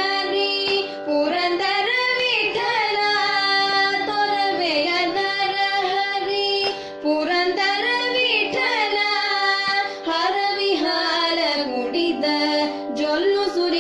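A woman and a girl sing a Carnatic devotional song in raga Bindumalini, drawing out long ornamented phrases over a steady drone.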